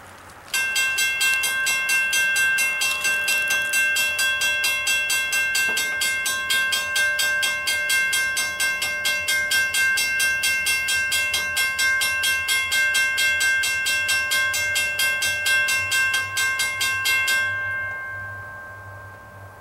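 A railway bell ringing rapidly and steadily, about four strikes a second over a ringing chord. It starts abruptly about half a second in and stops near the end, leaving the low rumble of the approaching train.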